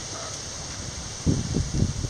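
Wind buffeting the microphone in several low rumbling gusts over the last second, over a steady background hiss, with a hen clucking faintly at the very start.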